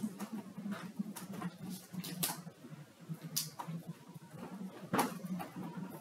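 Irregular light clicks and taps of laptop keyboard typing and paper handling at a desk, a few per second, over a steady low hum.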